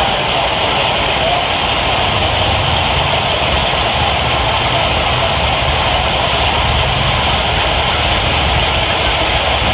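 Heavy hailstorm: a dense, steady roar of hailstones pelting hard surfaces, with a low rumble underneath.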